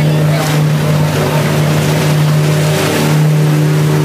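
A river ferry boat's engine running with a steady drone, with water washing along the hull as the boat moves.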